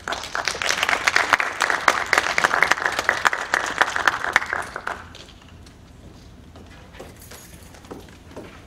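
Audience clapping, a dense patter of many hands that dies away after about five seconds.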